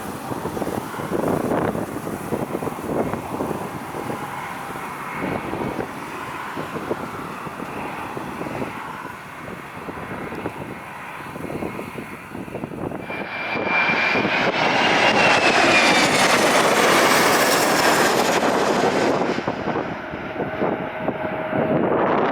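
Gusty wind buffeting the microphone, then a jet airliner's engines passing close by from about 13 seconds in, a loud rush with a high whine that rises and falls as it goes over, easing off near the end.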